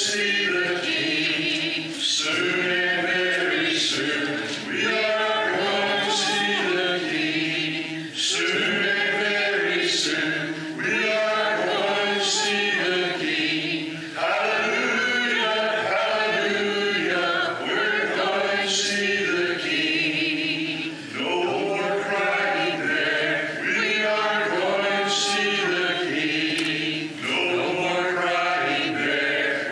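Congregation singing a hymn a cappella, voices only with no instruments, in phrases a couple of seconds long.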